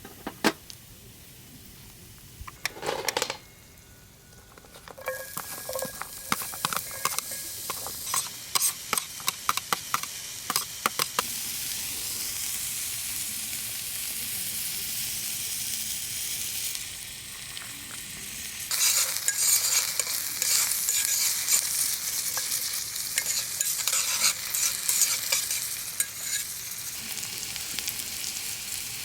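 Food sizzling and spitting in a hot pan, with scattered sharp crackles and taps; the sizzle turns steady and then grows louder about two-thirds of the way through.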